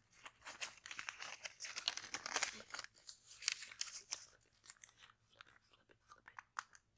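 Paper of a small spiral-bound notepad crackling and tearing as it is handled close to the microphone: a dense run of crackles for the first four seconds or so, then sparser separate ticks.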